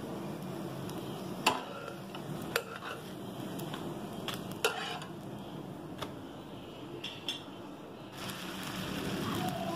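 A wide steel spatula knocking and scraping against a non-stick tawa as a cooked holige is folded and lifted off: a few sharp metallic taps, the loudest about a second and a half in and again near five seconds, over a steady low hum.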